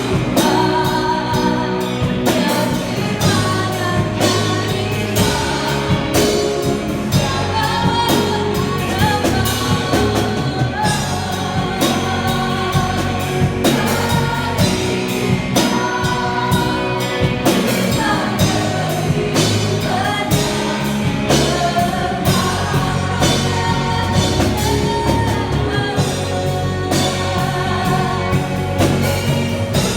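Gospel song sung by a group of voices over a band with bass and a steady drum beat.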